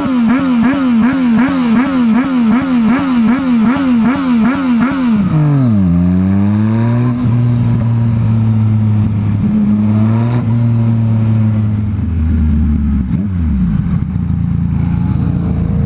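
Yamaha MT-09's three-cylinder engine, through a Scorpion full exhaust with no dB killer, revved in quick repeated throttle blips about twice a second for about five seconds, making noise. Then the revs drop and the bike rides on at fairly steady revs, easing off again near the end.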